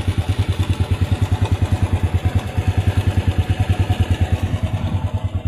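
Honda Astrea Legenda 2's 96 cc single-cylinder four-stroke engine idling steadily, an even rapid putter of about ten beats a second.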